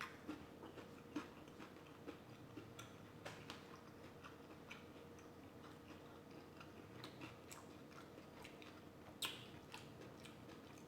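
Faint, close-up chewing of seafood boil, with many small wet mouth and food clicks scattered throughout and one sharper click about nine seconds in.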